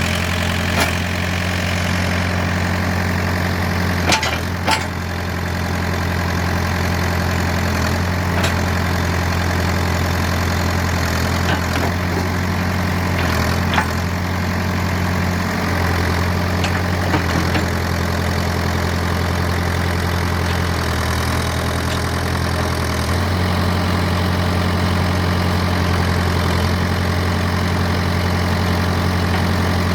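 1996 Ford 555D backhoe loader's diesel engine idling steadily, its pitch shifting slightly a few times, with a handful of brief sharp clicks or knocks over it.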